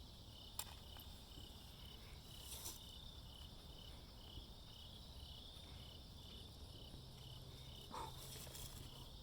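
An insect, likely a cricket, chirping faintly and evenly, about two to three chirps a second, with a few faint clicks.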